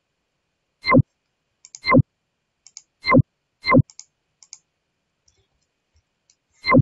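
Computer mouse clicks picked up close to the microphone: five loud, sharp clicks at uneven intervals, with a few much fainter clicks between them.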